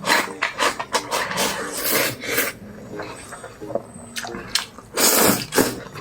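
Close-up eating noises, wet chewing and slurping with sharp smacks, in several loud noisy bursts over faint background music.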